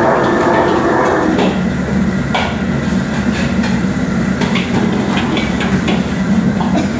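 Metal ladle clanking and scraping against a wok during stir-frying, several irregular strikes over the steady rush of the wok burner.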